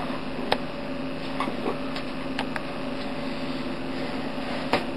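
A steady mechanical hum with a few faint clicks.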